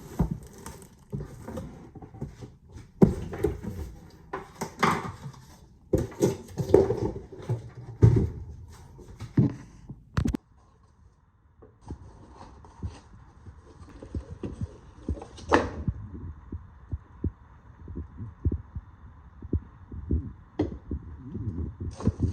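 Irregular knocks, thumps and rustling as a coffee maker and its parts and packaging are handled and unpacked. The clatter stops abruptly about ten seconds in; after that come scattered low thumps over a faint steady hum.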